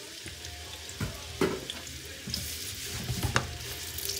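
Diced onions sizzling in hot oil and butter ghee in a metal frying pan, stirred with a wooden spoon, with a few sharp knocks against the pan.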